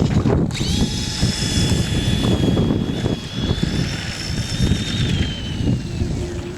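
AMP MT 2WD RC monster truck driving off, its electric motor giving a steady high-pitched whine that starts about half a second in and drops in pitch near the end as the truck slows, over wind noise on the microphone.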